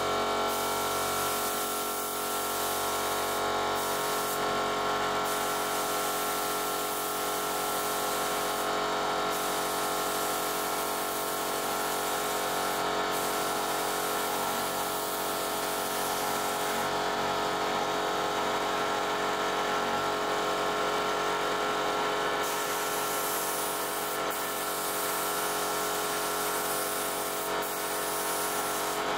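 Cheap compressed-air paint spray gun hissing steadily as paint is sprayed, over the steady hum of the air compressor feeding it. The hiss drops back several times as the trigger is eased, once for about five seconds, while the hum carries on.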